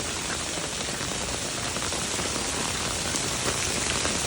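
Heavy rain falling: a steady hiss flecked with the patter of individual drops.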